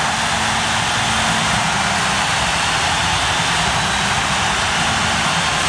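Hockey arena crowd cheering loudly and steadily right after a goal.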